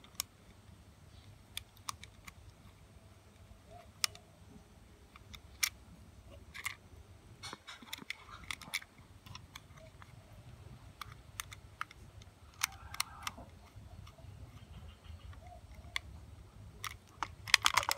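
Scattered small clicks and taps of a screwdriver working the terminal screws of a plastic electrical wall socket while the green earth wire is pushed into its terminal, with a few short clusters of ticks.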